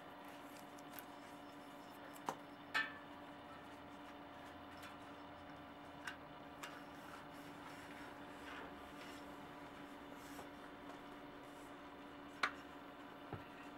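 Handling of a red rim strip as it is pressed into a spoked bicycle rim: a few scattered light clicks and ticks over a faint steady hum. The sharpest clicks come about two and a half seconds in and near the end.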